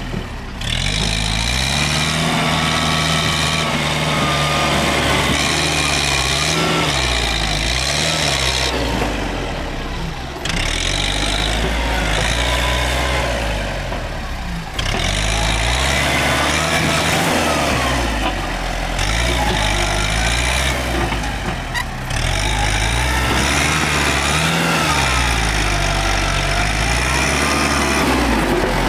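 Farm tractor engine working under load while its front dozer blade pushes soil, the engine note rising and falling. It dips briefly twice, about nine and fifteen seconds in.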